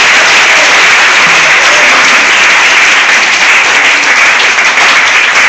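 Congregation applauding, a loud, dense clapping that thins and turns uneven near the end.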